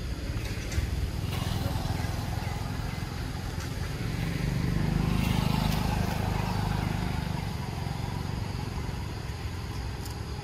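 Low, steady rumble of a motor vehicle engine running nearby, swelling louder about four seconds in and easing off again.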